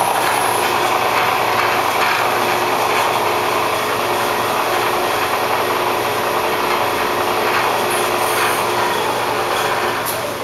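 1995 Hurco three-axis CNC vertical milling machine running under power in auto mode: a steady mechanical whir of its spindle and drives, with several steady tones over it.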